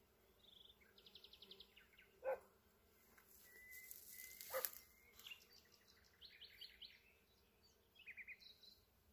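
Faint birdsong: quick trilled runs of high notes. Two short, sharp dog barks, about two and four and a half seconds in, are the loudest sounds.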